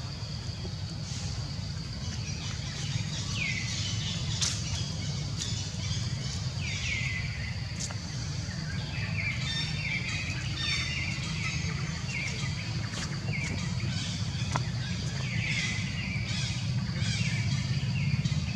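Birds calling in forest, with short notes that slide downward, repeated every second or few seconds and more often in the second half. Beneath them run a steady high hum and a low background rumble.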